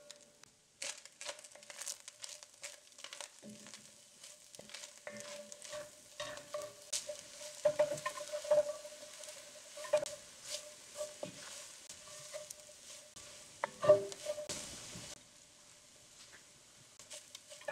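Food sizzling in an enameled cast iron pot while a utensil stirs and scrapes it, with irregular clicks and one louder knock against the pot near the end. The sizzling stops abruptly shortly before the end.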